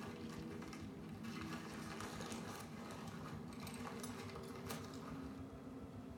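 Quiet film soundtrack playing through a home theater's speakers: faint rustling of paper leaflets drifting down, over a few low steady tones.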